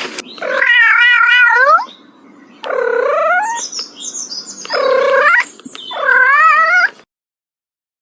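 Domestic cat meowing and yowling: a series of drawn-out calls with wavering pitch, with a higher squealing cry in the middle.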